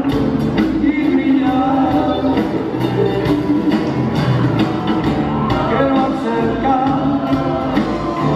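Live Andean folk-rock band playing, with a singing voice over electroacoustic guitar, bass, charango and drums keeping a steady beat, ringing in a large hall.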